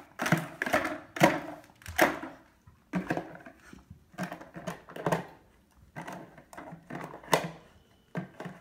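A beagle knocking and pushing a hard plastic toy about on a hardwood floor against a cabinet base: an irregular run of clacks, knocks and scrapes, mixed with its claws tapping the floor.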